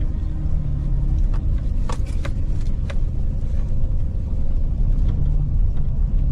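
Vehicle cabin sound while driving slowly: a steady low engine and road rumble, with a few scattered knocks and rattles.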